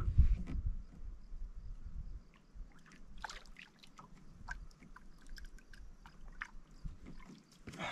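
Faint water sloshing and dripping around a small fishing craft, with scattered light clicks and ticks. A heavier low rumble fades out in the first half second.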